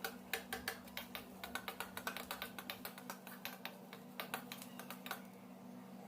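Spatula clicking and scraping against a kadai as chopped onion is stirred and sautéed in oil: a quick, irregular run of small clicks that stops about five seconds in. A faint steady hum sits underneath.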